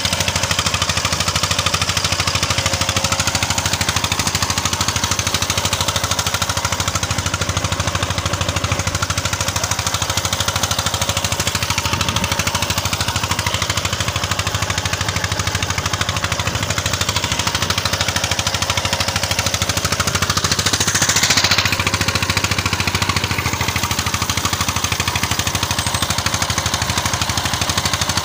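Boat engine running steadily under way, a loud, rapid, even chugging.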